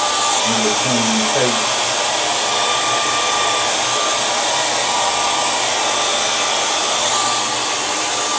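Handheld hair dryer blowing steadily on twisted hair, a loud, even rush of air with a faint steady whine in it.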